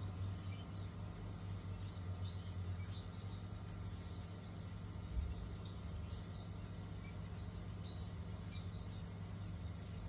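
Rosy-faced lovebirds giving faint, short high chirps scattered through, over a steady low hum, with a soft bump about five seconds in.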